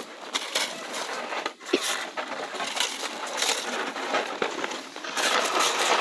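Snow shovels scraping and digging into packed snow: an irregular run of scrapes and crunches that grows louder and denser about five seconds in.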